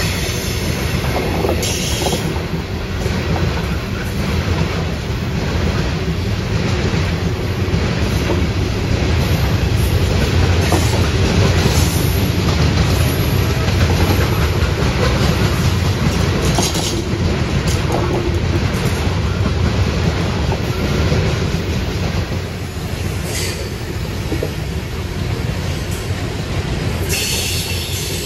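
Freight train rolling past: a steady low rumble with wheels clicking over the rail joints, and brief high-pitched wheel squeals about two seconds in and again near the end.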